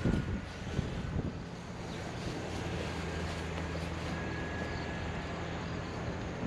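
A large farm machine's engine running steadily at constant speed, with wind buffeting the microphone and a knock right at the start.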